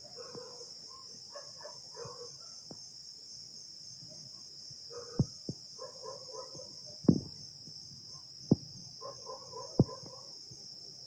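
Several dogs barking in the distance over a steady, high chorus of night insects. About five sharp knocks, the loudest sounds, come in the second half.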